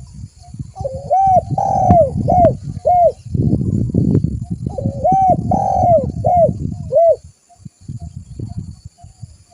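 A spotted dove (tekukur) singing its cooing song: two phrases of several rounded coos each, about two seconds apart, over a steady low rumbling background noise.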